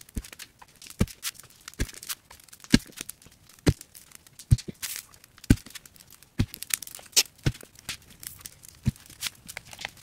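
A long narrow digging spade being jabbed down into soil to dig a post hole, each stroke landing with a sharp crunch about once a second.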